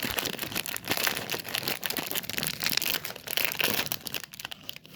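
Plastic food packaging being crinkled and rustled by hand, a dense irregular crackling.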